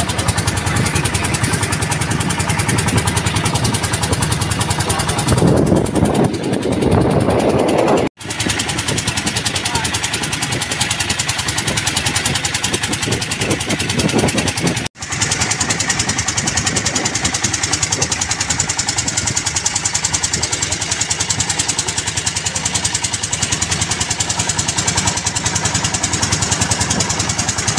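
A small wooden boat's engine running steadily under way, a fast even chugging, with two brief breaks in the sound.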